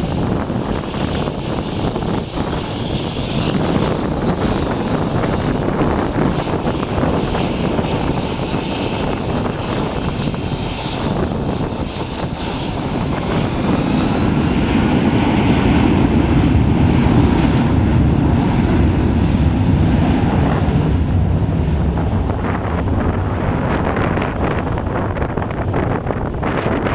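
Boeing 757-300 twin-engine jet airliner passing close by, its engines' rumble growing to a peak past the middle of the stretch and easing off toward the end, with heavy wind noise on the microphone.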